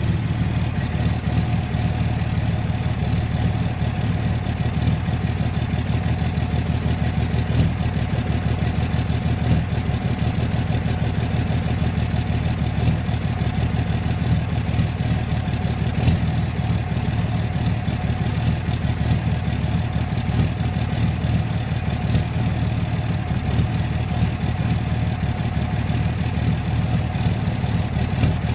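2006 Dodge Ram's 5.9-litre Cummins common-rail inline-six turbo diesel idling steadily with a rapid, even clatter. The owner suspects bad injectors from this sound.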